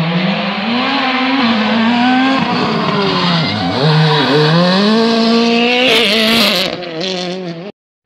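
Rally car engine at full throttle, its pitch rising and holding, then dropping sharply as the car brakes and changes down for a tight corner about three and a half seconds in. It climbs again as the car accelerates out, with a burst of hiss about six seconds in. The sound cuts off suddenly just before the end.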